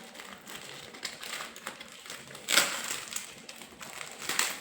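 Parcel packaging being handled and torn open: crinkling and rustling with small clicks, and a sharper ripping burst about halfway through, the loudest sound, with a smaller one near the end.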